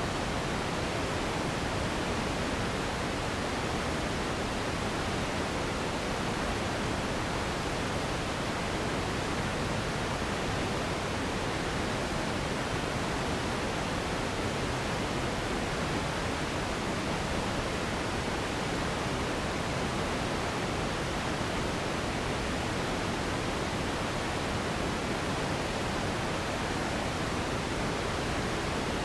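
Steady synthetic pink noise: an even, unchanging hiss across all pitches, somewhat fuller in the lows than white noise.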